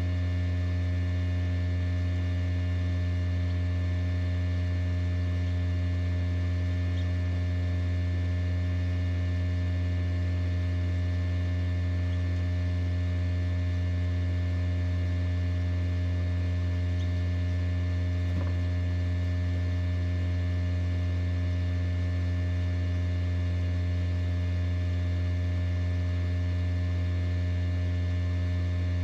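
Egg incubator running: a steady low electrical hum with many overtones, unchanging throughout, with one faint tick about two-thirds of the way through.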